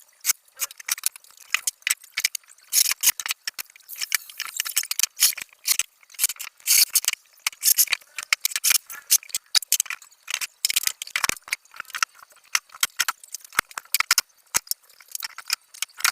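Rapid, irregular clicking and rattling: many sharp clicks in quick, uneven succession.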